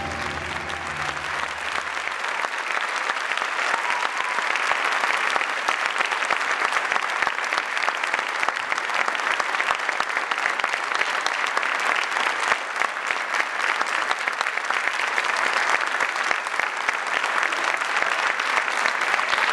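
Audience applauding steadily after a dance performance ends, with the last held low notes of the music dying away in the first couple of seconds.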